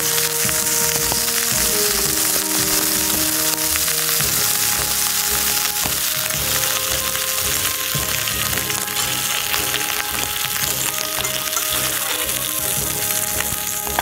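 Pork belly frying in oil in an iron frying pan, a steady crackling sizzle, with background music playing a melody over it.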